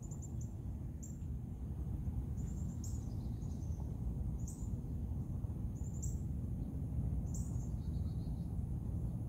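A bird's short, high chirps repeating every second or so, some as quick little trills, over a steady low background rumble.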